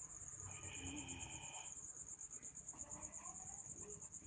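Crickets trilling steadily, a fast, high, pulsing chirr, faint throughout. A brief higher tone sounds about half a second in.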